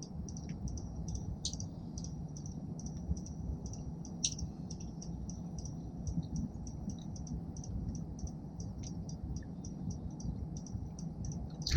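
Small bird calling a rapid series of short, high chips, about five a second and very even, over a low background rumble, with a few louder sharp calls or snaps mixed in.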